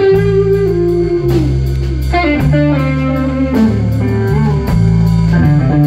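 Slow blues band playing an instrumental passage between sung lines, with a guitar carrying the melody in held and bending notes over bass and drums.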